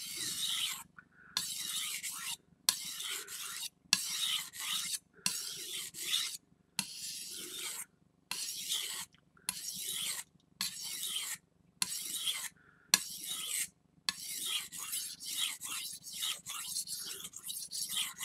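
VG10 steel knife blade stroked back and forth across a wet whetstone under firm pressure, a rhythmic gritty scraping of about one stroke a second with short pauses between. The strokes come quicker and closer together near the end.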